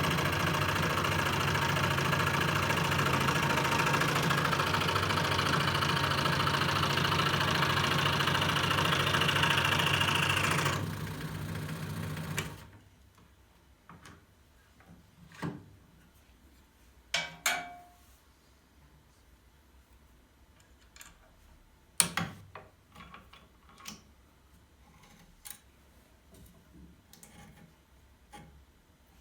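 Electric scroll saw running steadily, its blade cutting, for about eleven seconds, then switched off and winding down within a second or two. After that, scattered light clicks and knocks, a few of them sharp.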